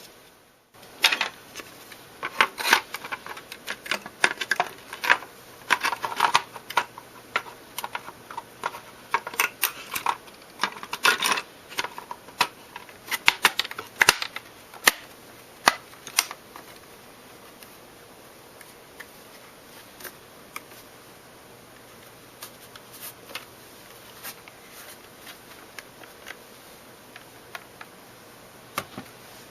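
Irregular plastic clicks and taps from handling the casing of a Buffalo LinkStation LS-XHL NAS, its snap-fit case parts and tabs being worked. They come thick and fast for about the first half, then thin out to an occasional click.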